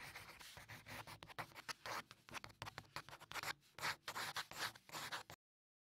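A pen scratching out handwriting in quick, irregular strokes that come several to the second, some louder than others. It cuts off suddenly shortly before the end.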